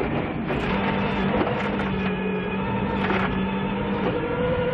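Subaru Impreza WRC rally car's turbocharged flat-four engine pulling hard at steady high revs, heard from inside the cabin over gravel noise from the tyres. The note breaks briefly about four seconds in, then climbs again.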